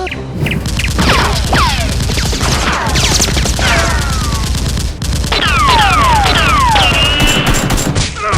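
Gunfire sound effects laid over a Nerf battle: rapid automatic-fire volleys with many falling whistles. The firing dips briefly about halfway through, then resumes. Background music runs underneath.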